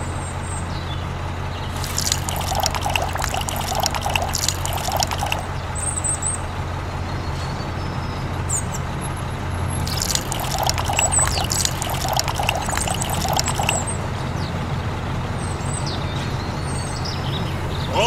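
Water poured from a small cup into a miniature cement mixer's drum over cement powder, splashing in two spells, about two and ten seconds in, under a steady low hum.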